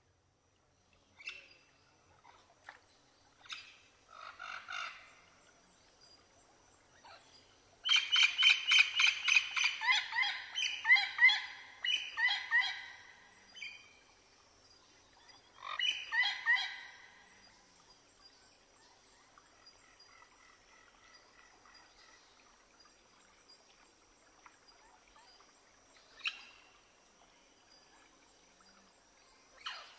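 Bird calls: a few scattered chirps, then a long run of quick, rapidly repeated calls about a third of the way in, a shorter group a little later, and a few lone chirps near the end.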